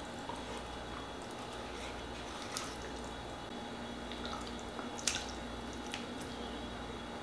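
Soft scraping and wet plops of canned pumpkin purée being scooped with a spatula from a measuring cup into a plastic mixing bowl, with a few light taps of the utensil; the sharpest tap comes about five seconds in.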